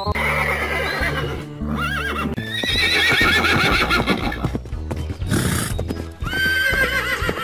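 A horse whinnying several times in quavering calls, with hooves clip-clopping, over background music.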